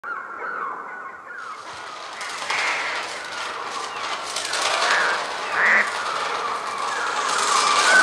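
Massed bird cries and a rushing flutter of wings, made electronically on a Mixtur-Trautonium rather than recorded from live birds. The wing noise swells in about a second and a half in, and single harsh squawks rise over it a few times as the whole grows louder.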